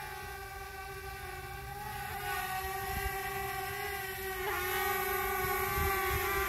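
Quadcopter drone's propellers whining steadily in flight, a buzzing hum made of several pitches together. About four and a half seconds in the pitch dips briefly and shifts, and the sound grows louder towards the end.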